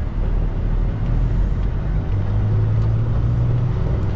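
Semi truck's diesel engine running, heard from inside the cab as a continuous low rumble; about two seconds in, a steady low drone joins it.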